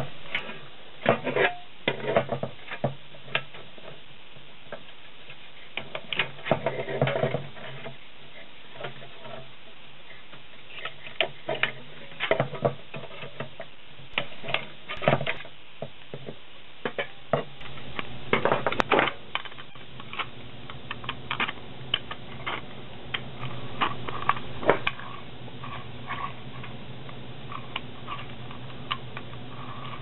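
Irregular clicks and thin metallic knocks from working a steel paint can lid by hand: a paper punch snapping holes through the rim, and the lid rattling as heavy wire is worked through the holes. A steady low hum runs underneath and grows louder about halfway through.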